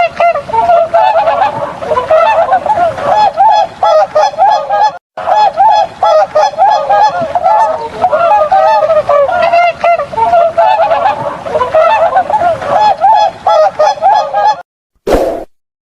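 A flock of swans honking, many calls overlapping in a dense, continuous chorus. It breaks off for a moment about five seconds in and stops near the end, with one short burst after.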